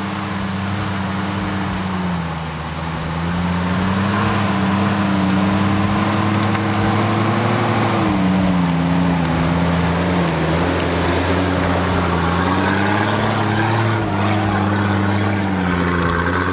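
Off-road 4x4's engine running under load, its revs rising and falling several times as it crawls over rough ground.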